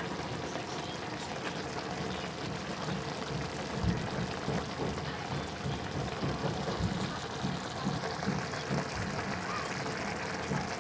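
Thickened escabeche sauce simmering around fried fish in a wok, bubbling with a steady hiss and irregular soft pops.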